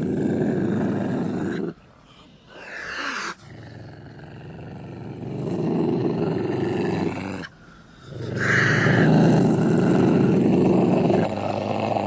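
Ocelot growling: long, rough, low growls broken by two short pauses, with a brief higher gliding call about three seconds in.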